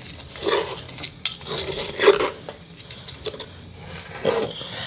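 A spoon scraping and clinking against a glass measuring jug as a wet sand-and-cement mix is stirred, in irregular strokes with a few sharp knocks.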